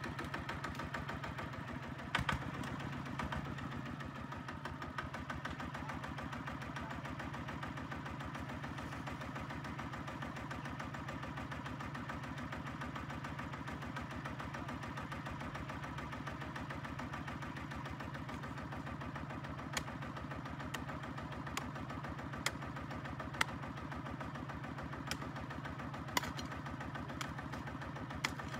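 Single-cylinder diesel engine of a HINOTA two-wheel walking tractor running steadily with a fast, even chug. In the second half, a few sharp knocks stand out over it.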